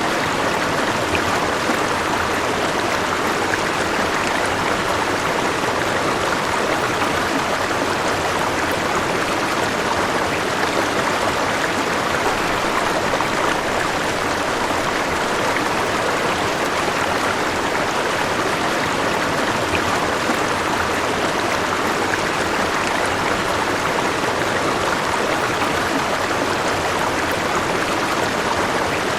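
River water flowing and rushing over rocks, a steady, even sound that does not change.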